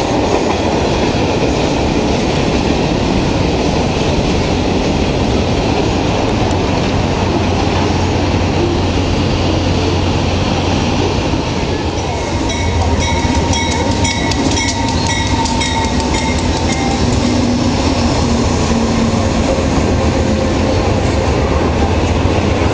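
Freight train of boxcars rolling past close by, a steady rumble with wheels clattering over the rail joints. About halfway through an Amtrak passenger train takes over, its cars rumbling past with thin high ringing tones over the noise for a few seconds.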